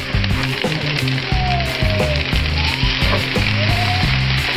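Beef steaks, a T-bone and a filet, sizzling steadily on the hot grates of a gas grill. Background music with a rhythmic bass line plays underneath.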